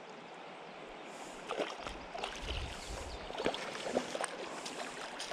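River water flowing and sloshing right at the microphone, with scattered small splashes and clicks through it and a low rumble of water a couple of seconds in.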